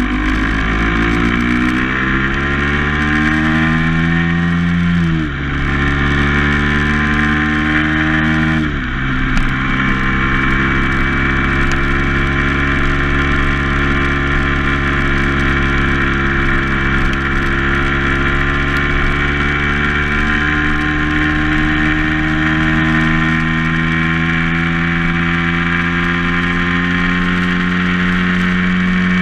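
A vehicle's engine pulling up through the gears. Its pitch rises, drops at a gear change about five seconds in, rises again and drops at a second change near nine seconds, then settles into a steady cruise that climbs slowly.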